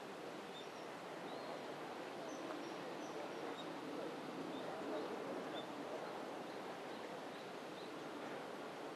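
Steady outdoor background noise with scattered faint, short, high chirps of small birds.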